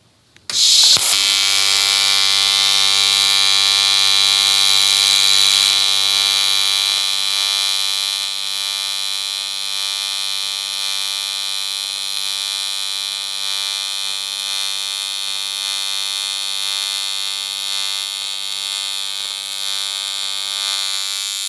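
AC TIG welding arc on aluminium sheet from an EWM welder set to 80 amps: a steady buzz that strikes about half a second in and cuts off near the end, a little quieter after about eight seconds. The welder considers 80 amps still too little current for this sheet.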